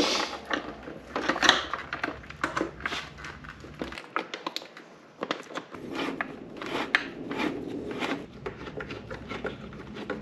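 Irregular clicks, taps and light scraping of hand work on a motorcycle turn signal mount being tightened with a hex key, with the plastic headlight fairing knocking under the hands.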